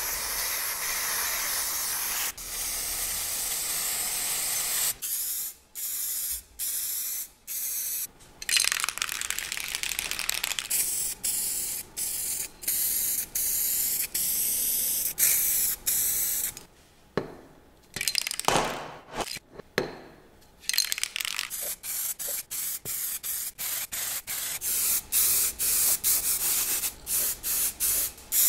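Aerosol spray cans hissing as primer and then paint are sprayed onto a starter motor housing and end cap. Several longer bursts come first, then many short, quick bursts in the second half.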